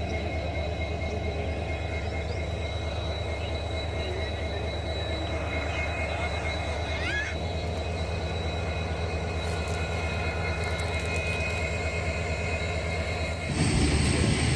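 Express train heard from aboard, running steadily along the track: a continuous low rumble with faint high whines. Near the end the sound suddenly gets louder and noisier.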